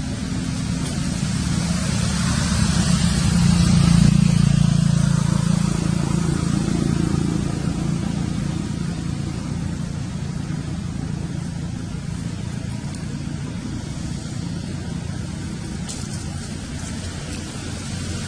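A motor vehicle's engine hum, steady and low, that grows louder over the first few seconds and then slowly fades, over a wash of outdoor noise.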